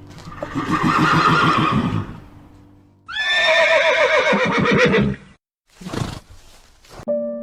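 Horse whinnying twice: a shorter shaky call, then a longer one that starts high and falls in pitch. A brief breathy burst follows near the end.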